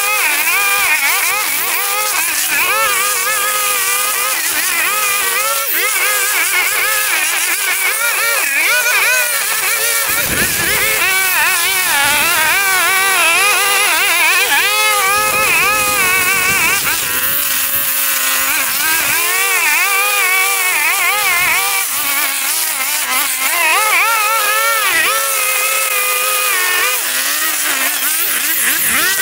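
Lawn mower engine running steadily while cutting tall, overgrown grass, its pitch repeatedly dipping and picking back up as the load changes.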